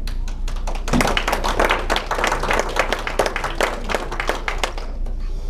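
Audience clapping: a crowd's applause that swells about a second in and thins out near the end.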